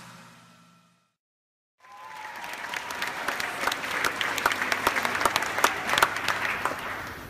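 Audience applauding in a hall, with many sharp individual claps. It starts about two seconds in after a moment of silence, swells, and dies down near the end.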